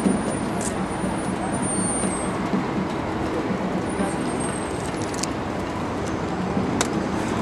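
Steady city street traffic noise, with a few faint clicks.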